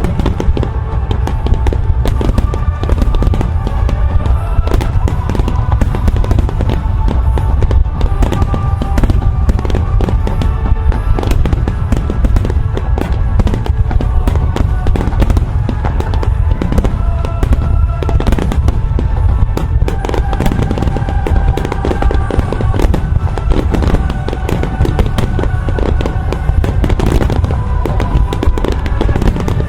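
Fireworks barrage: a dense, rapid run of aerial shell bursts and booms with no break, over music with sustained tones.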